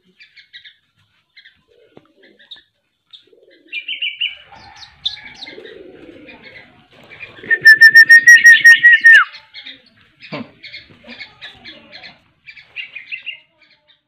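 Caged small birds chirping in short high notes, with wing flapping. Partway through, the loudest sound is a rapid high trill of about a dozen pulses on one note, lasting under two seconds and ending in a downward slide.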